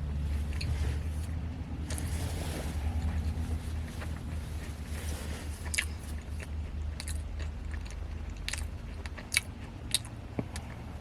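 A person chewing a mouthful of donut, with sharp wet mouth clicks in the second half, over a steady low hum.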